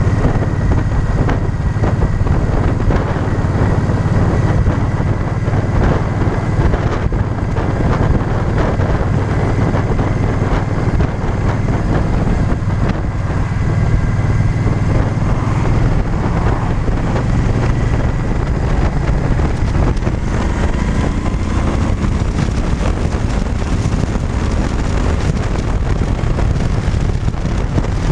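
Cruiser-style motorcycle engine running steadily at road speed, with wind buffeting the microphone.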